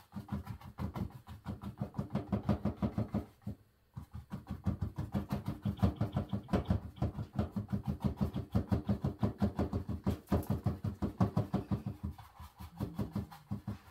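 Paintbrush dabbing rapidly on a stretched canvas, a quick even run of soft drum-like taps, several a second, with a short break a little over three seconds in and lighter taps near the end.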